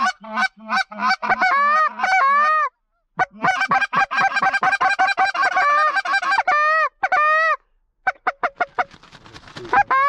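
A flock of Canada geese honking and clucking in rapid, overlapping calls, densest in the middle, with short pauses about three and eight seconds in.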